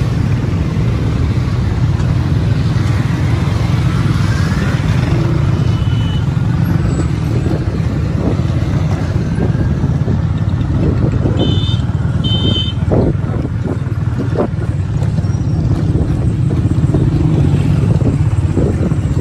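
Steady engine and road noise of a motorcycle ride, heard from on the moving bike. Two short high beeps come about a second apart near the middle.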